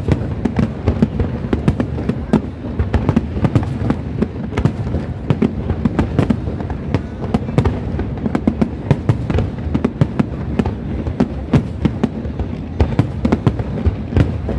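Aerial firework shells bursting in a dense, unbroken barrage, several bangs a second.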